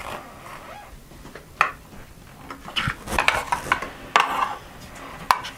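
Plastic Velcro toy fruit pieces being handled and pressed together: a few sharp clacks and some rustling.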